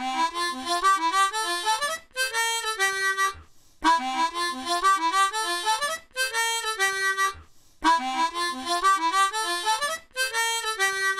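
Background instrumental music: a reedy melody of short notes, played in phrases about two seconds long with brief pauses between them, the same pattern repeating.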